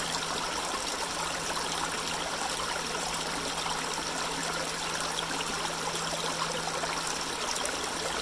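Small shallow creek running and trickling over rocks and pebbles, a steady, unbroken babble of water.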